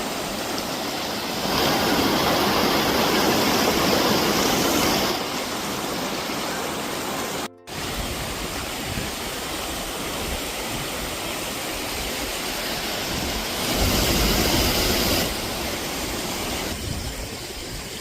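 Rushing water, a steady noisy roar that swells louder twice and drops out for an instant near the middle.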